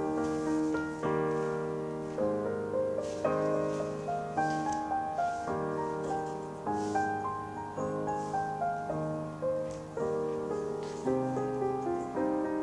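Background piano music: a slow melody of single notes over held lower notes, each note struck and then fading.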